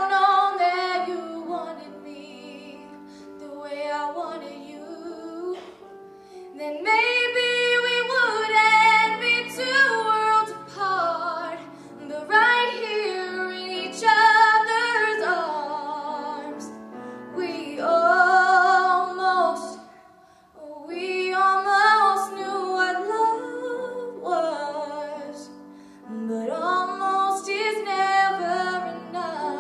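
A young woman singing a slow pop ballad into a handheld microphone, with vibrato on held notes, in phrases broken by short pauses, over a soft instrumental accompaniment.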